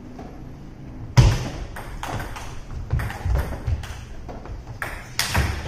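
Table tennis ball clicking off paddles and the table in a series of sharp taps, with a heavier knock about a second in the loudest, all ringing in a large hall.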